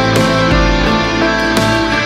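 Instrumental background music, loud and steady, with sustained notes and chords changing every half second or so.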